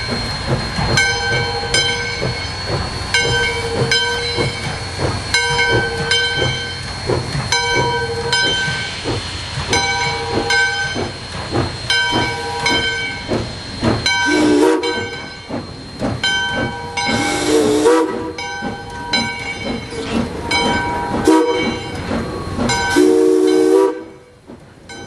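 Steam locomotive in a station: a bell rings steadily about once a second, and in the second half the whistle gives a few short toots, each with a burst of steam hiss.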